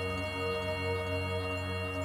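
Ambient new-age background music with long held notes over a steady bass.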